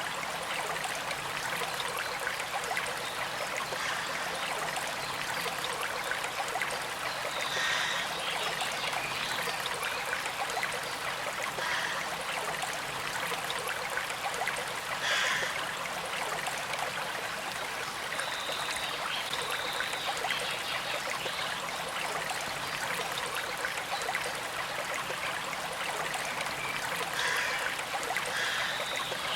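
Small creek flowing and trickling in a steady rush of water, with a few brief brighter splashes scattered through it.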